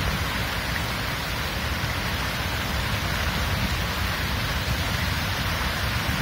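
Storm noise of wind buffeting the microphone over heavy surf breaking against a harbour wall. It is a steady, loud rushing with a fluttering low rumble and no separate events.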